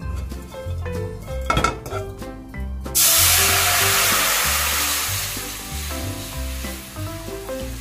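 A spatula stirs dried anchovies in a hot, dry nonstick frying pan with a few light scrapes. About three seconds in, water is poured into the hot pan and it sizzles loudly all at once, the sizzle slowly fading.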